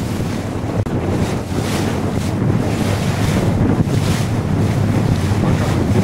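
Wind buffeting the microphone aboard a moving excursion motor boat, over a steady low rumble of the boat and the rush of water past the hull. Brief hissing surges come every second or so.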